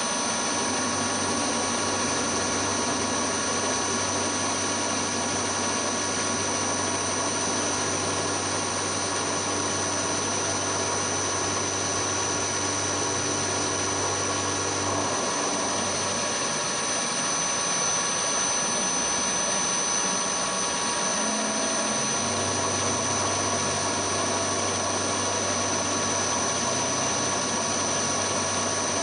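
Milling machine spindle running an end mill across steel blocks in a light facing skim cut: a steady high motor whine with cutting noise. A low hum drops away for several seconds midway, then returns.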